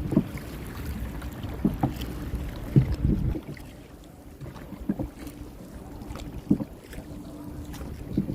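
Wind buffeting the microphone beside dragon boats on the water, with scattered knocks and splashes at uneven intervals. The wind rumble drops away about three seconds in.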